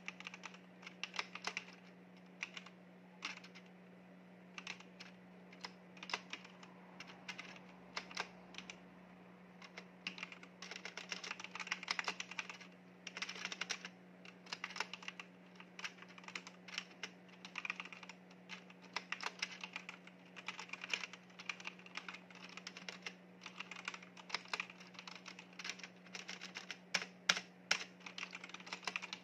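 Continuous typing on a compact backlit mechanical keyboard: an irregular clatter of key presses that gets busier from about ten seconds in, over a faint steady low hum.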